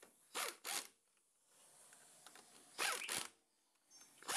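Impact wrench tightening wheel nuts on an alloy wheel in short bursts, two quick bursts at a time: a pair about half a second in, another near three seconds in, and a third starting at the very end.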